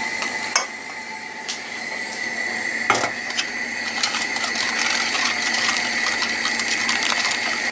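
A whisk stirring a milk custard cream round a stainless steel saucepan, a steady rapid scraping and clicking of the wires against the pot, with one sharper knock about three seconds in. The cream is kept moving on low heat so it won't stick as it thickens.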